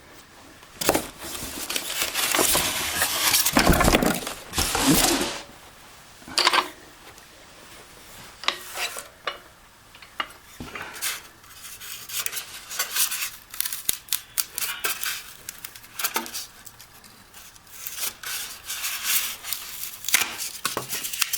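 A boxed floor jack being pulled out of its packaging: a few seconds of loud scraping and rustling of cardboard and foam packing, then many scattered small metallic clinks and knocks with lighter rustling.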